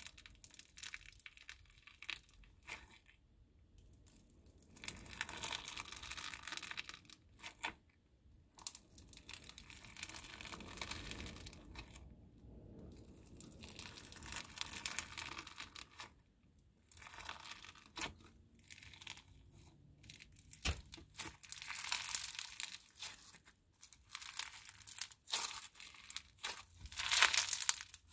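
Crunchy slime packed with bingsu beads and flat sequin glitter being squished and mixed by hand, giving irregular crackling and crunching in bursts with short pauses, loudest near the end as the slime is pulled out and stretched.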